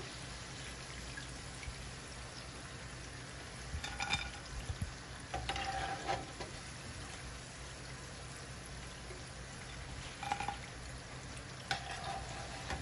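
Pakoras deep-frying in hot oil in a cast-iron skillet, a steady sizzle. Over it, a metal spoon clinks and scrapes against the pan four times, at about 4, 6, 10 and 12 seconds, as the fried pakoras are lifted out.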